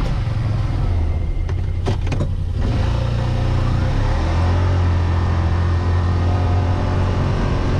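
Side-by-side UTV engine running under the rider, slowing to a stop, then pulling away and picking up speed from about four seconds in. A few knocks and rattles come about two seconds in.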